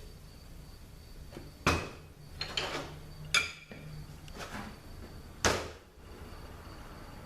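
Metal transmission parts being handled and set down on a hard surface: three sharp clanks, one near two seconds in, one in the middle that rings briefly, and one near the end, with lighter clinks between them.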